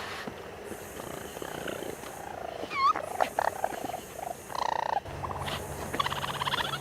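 Raccoon vocalising: a short, hooked chirp about three seconds in and another call shortly after, with scattered clicks, then a rapid purring trill near the end.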